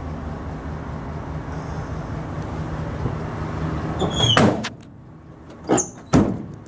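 A cargo door on a Chevy Express van being shut. A steady low hum runs until a loud rushing sweep about four seconds in; then come a click and a heavy thump as the door slams closed about six seconds in.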